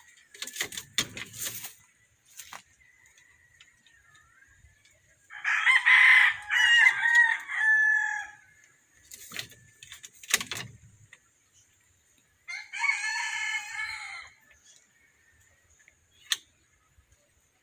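A rooster crowing twice: a long crow about five seconds in and a shorter one near thirteen seconds. Short knocks and rustles come near the start and again around ten seconds.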